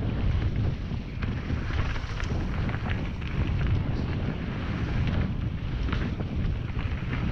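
Mountain bike descending a forest trail at speed: wind buffeting the camera's microphone over a steady tyre rumble, with scattered clicks and rattles from the bike over the dirt and wooden boardwalk.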